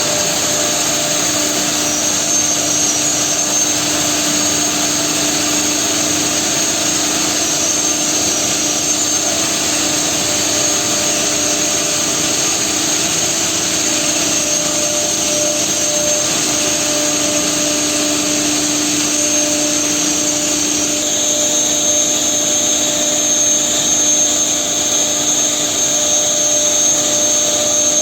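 Holztek PRO-R4A four-head CNC nesting router running steadily: a loud rushing air noise with a high, steady whine and a lower hum. The hum shifts in pitch about two-thirds of the way through.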